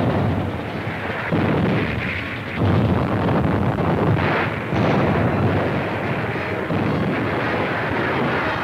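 Battle sound effects of gunfire and artillery blasts forming a dense, continuous din, with fresh surges about a second and a half, two and a half, and five seconds in.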